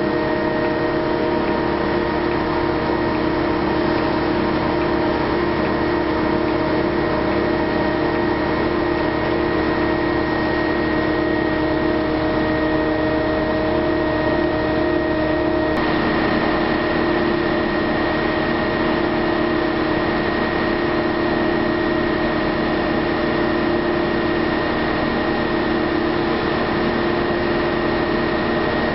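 Heavy engine running steadily at a constant speed, a level hum with several fixed tones. Its tone shifts abruptly about halfway through.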